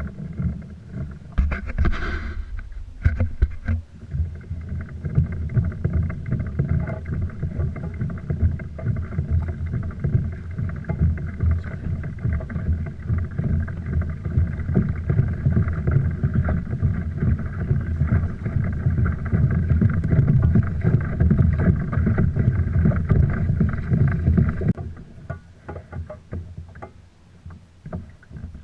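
Boat under way on the water: a steady low rumble with a faint hum over it, cutting off suddenly near the end.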